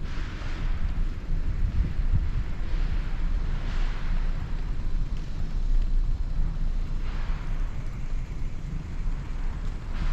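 Outdoor ambience: a steady low rumble with several short swells of hiss, spaced one to three seconds apart.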